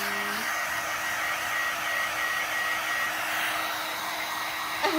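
Hand-held hair dryer running steadily, an even rush of air with a faint high whine, blowing on a small dog's coat.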